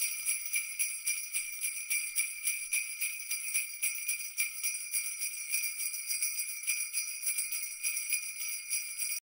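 Sleigh bells jingling, shaken in a quick, even rhythm, stopping abruptly at the very end.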